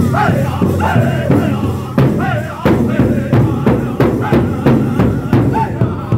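Powwow drum group singing in high, wavering voices while pounding a large shared powwow drum with padded sticks in a steady beat of about three strokes a second.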